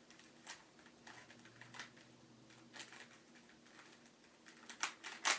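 A plastic Rubik's Cube being turned by hand: irregular clicks and clacks as its layers rotate, with the two loudest near the end.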